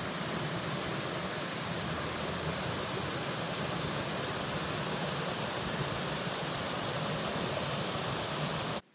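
Shallow river rushing steadily over rocks and small cascades; the sound cuts off suddenly near the end.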